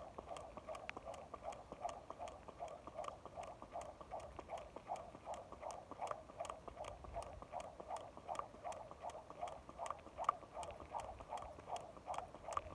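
Skipping rope turning steadily, the rope slapping the pavement with the feet landing in an even rhythm of about three strokes a second.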